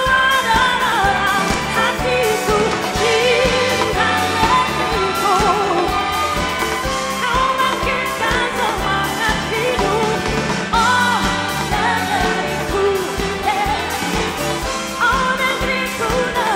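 A woman singing a ballad live, holding long notes with a wavering vibrato, over the accompaniment of a band, chamber orchestra and choir.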